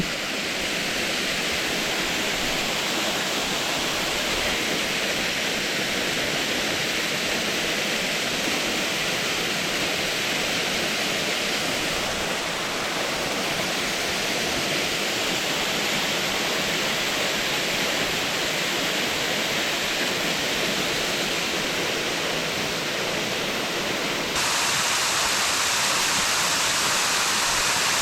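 Waterfall pouring: a steady rush of falling water, which suddenly becomes louder and brighter near the end.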